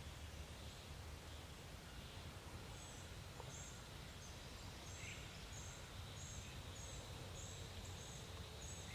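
Quiet woodland ambience with a small bird's thin, very high notes repeating about twice a second, starting about three seconds in, over a faint low rumble.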